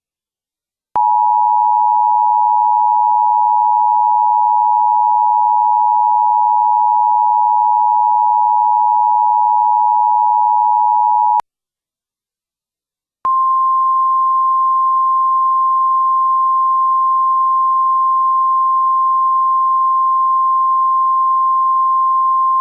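Emergency Alert System attention signal. A steady two-tone alarm tone starts about a second in and sounds for about ten seconds, then stops. After a short silence, a single steady, slightly higher tone, the National Weather Service weather-radio alert tone, begins and continues. The tones announce an emergency alert about to be read.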